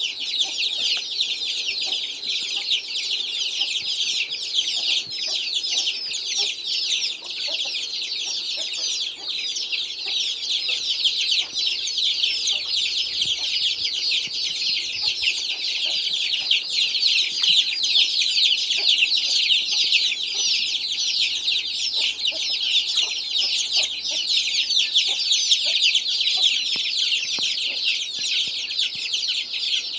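A brood of free-range chicks peeping nonstop, many short, high, falling cheeps overlapping.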